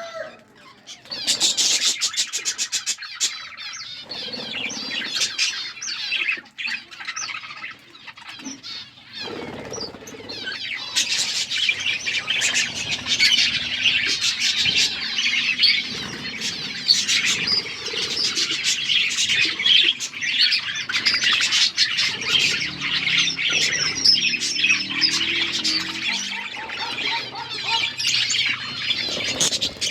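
A flock of budgerigars chattering and chirping, many calls overlapping into a continuous chorus that grows denser and louder about ten seconds in.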